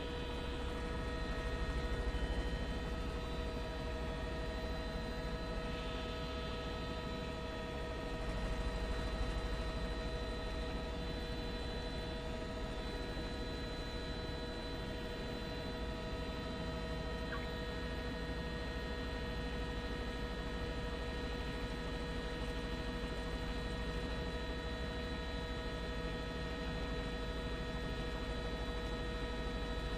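Steady electrical hum on the helicopter's audio feed: several fixed tones held unchanging over a low rumble.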